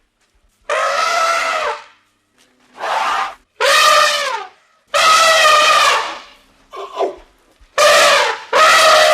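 A wild animal calling loudly over and over, about seven calls of roughly a second each, separated by short pauses, each call dipping in pitch at its end.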